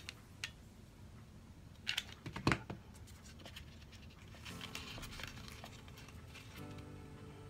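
A short burst of clicks and crinkling from hands working EVA craft foam and a hot glue gun, about two seconds in. From about halfway, quiet background music with held notes.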